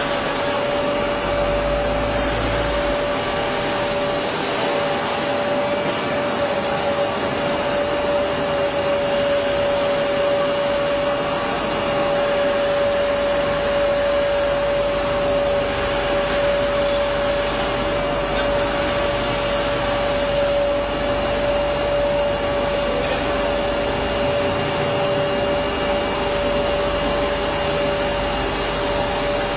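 CNC wood router running steadily: a constant whine from its high-speed spindle over an even rushing noise.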